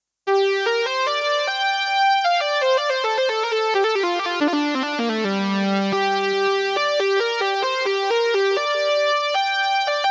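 KORG microSTATION synthesizer keyboard played with both hands, a melody over chords in a keyboard patch, starting abruptly just after the beginning. Midway a run of notes falls to a held low note.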